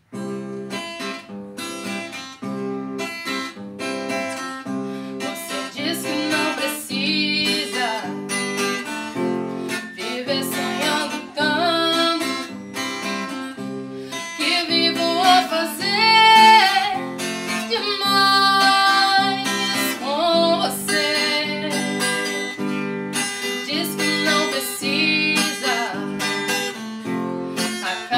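Acoustic guitar strummed in a steady rhythm as accompaniment, alone at first. A woman's singing voice comes in over it about six seconds in.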